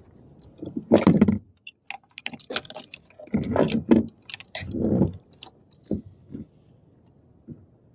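Fishing tackle being handled on a kayak: irregular small clicks and rattles of line, leader and hardware, with a few duller, louder knocks.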